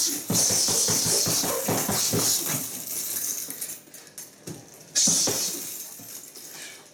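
Punches landing on a hanging heavy punching bag. A hard hit comes about five seconds in, and each hit is followed by a hissing, rattling noise that fades over a couple of seconds.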